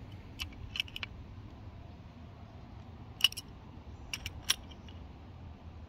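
Open-ended spanner wrench clicking and clinking against the spring pin's nut and the steel side bracket as the pin is tightened: about half a dozen sharp, irregular metal clicks, the loudest a little past three seconds and a quick run of three just after four seconds.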